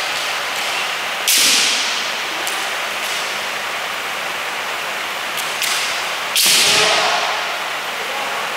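Bamboo shinai striking kendo armour in sharp smacks that echo through a large hall: two loud hits, about a second in and about six seconds in, with a few lighter taps between.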